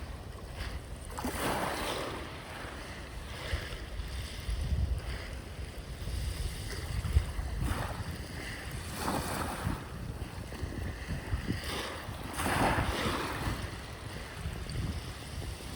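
Sea waves washing onto the shore, rising in several surges of hiss and falling back, over a low rumble of wind on the microphone.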